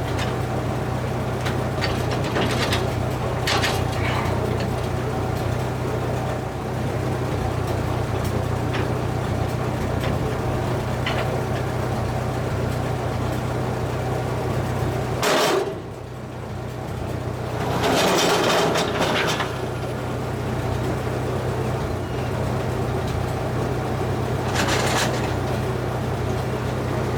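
An engine runs steadily at a constant speed, with a few short, louder rushes of noise over it, the longest about 18 seconds in.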